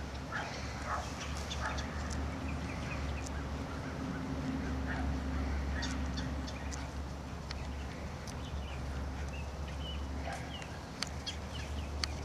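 Short animal calls, repeated every second or so, with a few sharp clicks over a steady low rumble.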